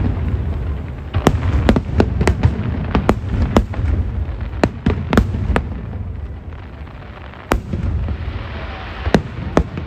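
Aerial fireworks bursting: a rapid string of sharp bangs over a continuous low rumble for the first six seconds, then only a few separate bangs.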